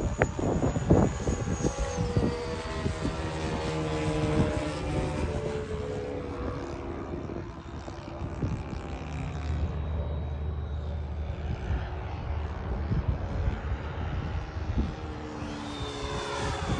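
90mm electric ducted fan of a radio-controlled F-16 jet model in flight: a high whine that steps down in pitch about two seconds in, fades through the middle, then rises and grows louder near the end as the jet passes low. Wind buffets the microphone.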